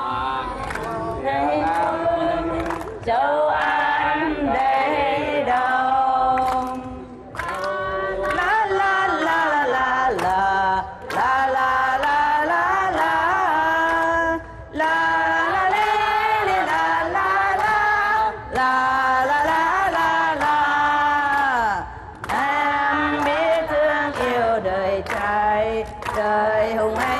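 Group singing of a Vietnamese song, led by a woman's voice into a microphone, in sung phrases of three to four seconds with short breaks between them.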